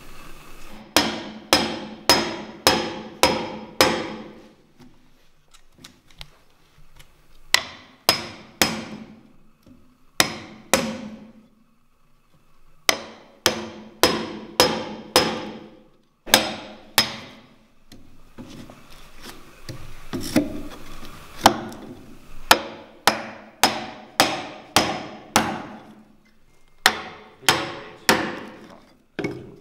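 Wood chisel struck with a mallet, chopping out a mortise in a timber beam: sharp blows about two a second in runs of two to six, with short pauses between runs.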